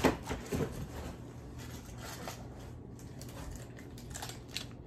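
Rummaging through a cardboard box of toys: short rustles and light knocks as items are handled, the loudest a sharp knock right at the start.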